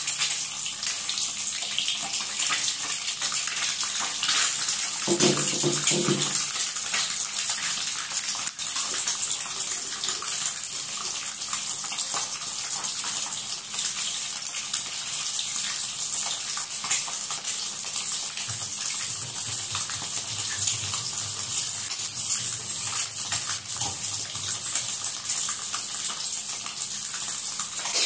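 Boiled eggs frying in hot oil in a kadai, sizzling steadily.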